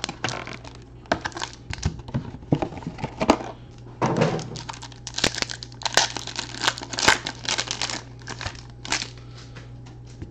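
Foil trading-card pack wrapper crinkling and tearing as it is ripped open by hand: a run of crackles that stops about nine seconds in.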